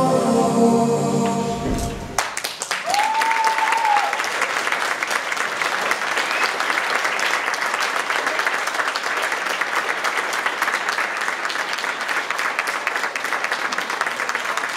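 Music breaks off about two seconds in, and an audience claps steadily for the rest of the time. A short whistle rises and falls once, a second or so after the clapping begins.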